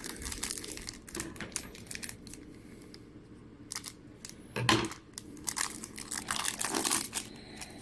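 Foil trading-card pack wrapper crinkling and being torn open, in short, irregular rustles. The loudest rustle comes a little past halfway.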